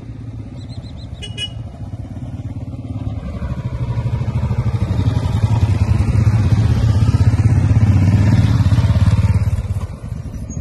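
Motorcycle engines running with a steady low pulse as the bikes pull away and ride past, growing louder through the middle and easing off near the end.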